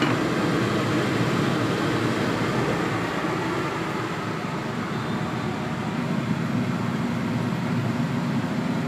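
Steady rushing noise of chicken simmering in soy sauce and rice wine in a covered pan on the stove.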